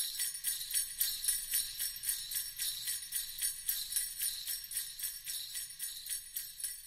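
Sleigh bells shaken in a steady rhythm, about three jingles a second.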